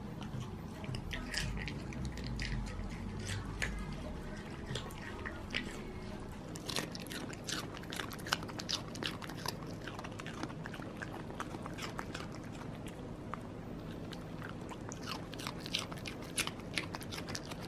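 Dogs chewing pieces of raw carrot: crisp crunches, sparse at first and coming thick and fast from about seven seconds in.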